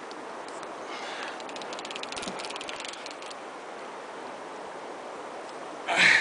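Baitcasting fishing reel clicking in rapid runs while a big fish is fought on the line, over a steady background rush. A brief loud burst of noise near the end.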